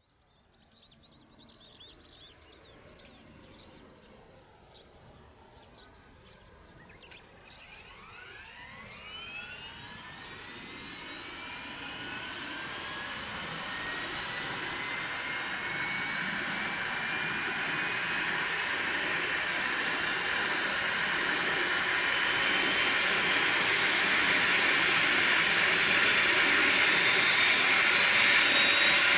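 Eurocopter BK117 C-2 helicopter's Turbomeca Arriel turboshaft engine starting. After about seven quiet seconds and a click, a whine rises steadily in pitch and grows louder with a building hiss as the turbine spools up and the main rotor begins to turn.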